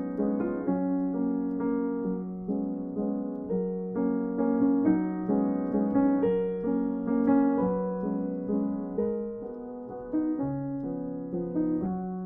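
Background music: a gentle piano piece playing melodic notes over a sustained low note.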